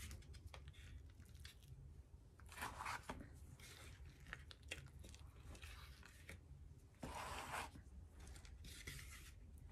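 Thick lightweight spackling being stirred by hand in a bowl: faint, irregular scraping strokes with small clicks as the utensil works through the paste.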